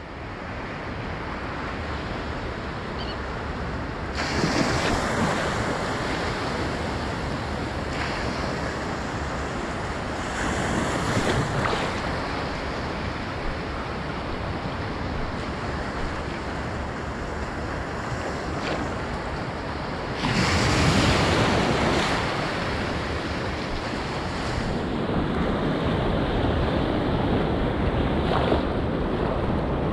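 Ocean surf washing onto the beach in a continuous rush, swelling louder a few times as waves break, most strongly about twenty seconds in, with wind buffeting the microphone.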